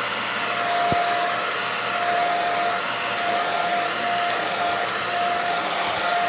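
Vacuum cleaner running steadily, with a whining tone in its rush of air that fades in and out.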